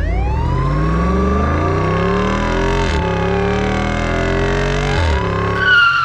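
Car engine sound effect accelerating hard, climbing in pitch and dropping back at two gear changes about three and five seconds in, with a police siren wailing up and down over it.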